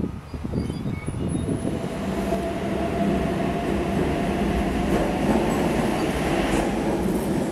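A Sydney Trains H set (OSCAR) double-deck electric train passing through a station without stopping, its running noise building to a steady rumble, with a steady whine over it through the first few seconds.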